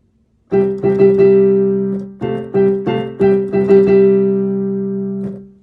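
Piano playing a short victory fanfare in C major, in a 'pan-paka-paan' rhythm. It opens with a group of quick repeated chords ending on a held one, continues with three evenly spaced chords, and closes with another quick group ending on a long held C-major chord that dies away.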